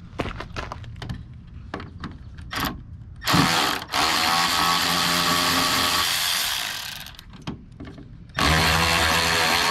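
Hand ratchet clicking quickly as the door hinge bolts are worked. About three seconds in a much louder steady noise with a low hum starts, runs for about three and a half seconds, and comes back near the end.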